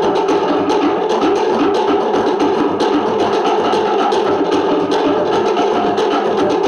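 Cook Islands drum-dance music: a fast, steady rhythm of many quick wooden strokes, typical of pate slit drums.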